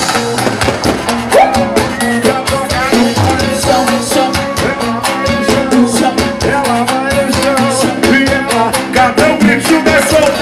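A live pagode baiano band playing loud, upbeat dance music, with electric guitar, bass and drums over dense, fast percussion.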